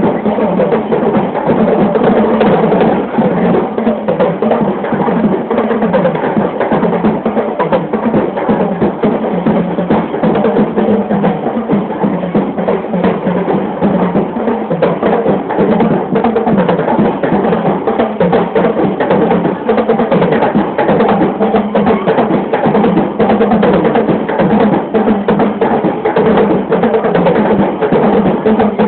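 Loud percussion music, with drums and a clacking wood-block beat, playing without a break.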